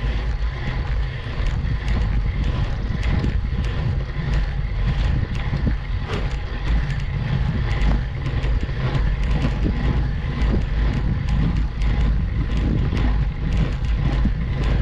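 Wind rumbling on the microphone of a camera riding along on a road bicycle climbing slowly up a steep grade, with frequent small clicks and rattles throughout.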